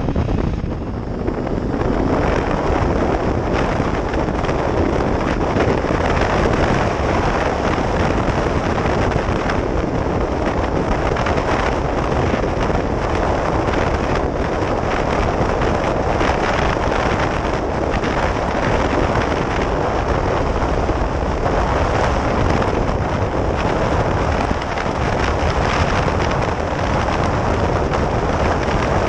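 Heavy wind buffeting on a chest-mounted microphone while riding a 2013 Kawasaki Ninja 300 motorcycle, with the bike's running engine under it. The noise is steady and loud throughout, easing briefly about a second in and again near the end.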